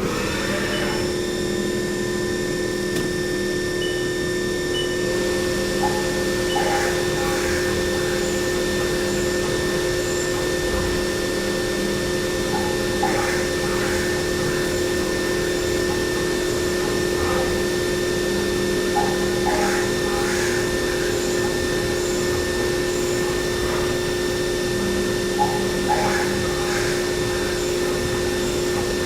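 CNC milling machine running with a steady whine, with short higher-pitched squeals about every six to seven seconds.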